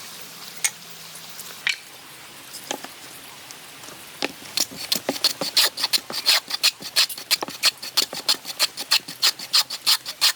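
A few scattered light knocks, then about four and a half seconds in a hand tool starts working wood in quick, even back-and-forth strokes, about three to four a second.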